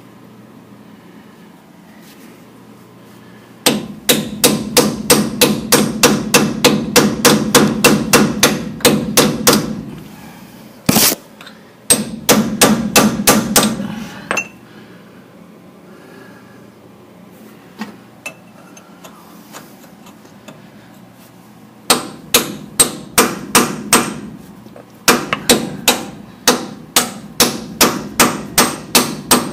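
Hand hammer striking metal in four runs of rapid, ringing blows, about three or four a second, with pauses between the runs. It is hammering at the steering knuckle and stub axle of a 1985 Dodge W150's Dana 44 front axle to free a stuck stub axle.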